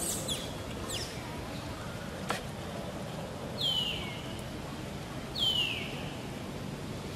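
Two short, high-pitched animal calls, each sliding down in pitch, about two seconds apart over a steady outdoor hiss, with faint high chirps and a single click earlier on.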